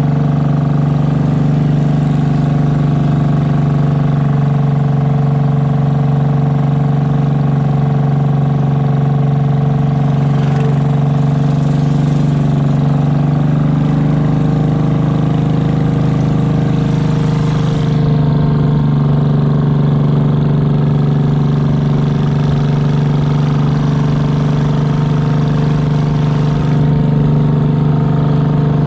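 Engine of a narrow motorized river boat running steadily at cruising speed, its hum holding one even pitch.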